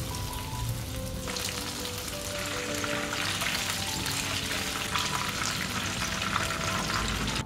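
Egg-white and cornstarch battered fish fillet pieces deep-frying in hot oil: a dense crackling sizzle that grows louder about a second in and again near three seconds as more pieces fill the pan.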